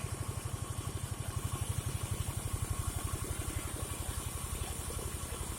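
Engine of a wood-sawing rig running steadily, with a fast, even thudding beat.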